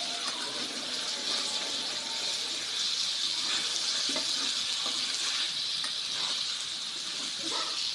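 Meat frying in hot oil in a pan, sizzling steadily, with a few faint knocks about four seconds in and near the end.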